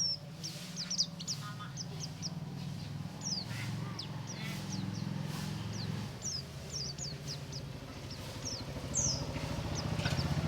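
White-eye (pleci) giving many short, high chirps, each sliding quickly downward, in irregular bursts over a steady low hum.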